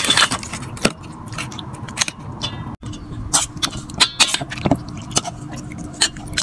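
Metal spoon stirring sliced pork in a wet marinade in a stainless steel bowl: irregular clinks and scrapes of spoon against the metal, about two a second.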